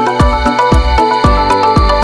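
Electronic background music with a steady kick-drum beat, about two beats a second, under held synth notes.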